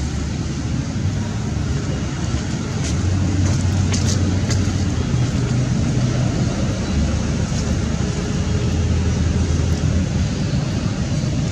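Steady low rumbling background noise outdoors, with a few faint clicks about three to four and a half seconds in.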